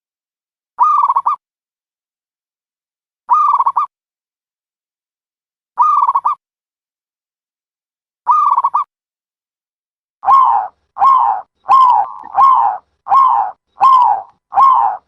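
Dove calling: a short call with a slight downward slide, repeated four times about two and a half seconds apart. About ten seconds in, the calls quicken to a run of about seven, each roughly 0.7 seconds after the last.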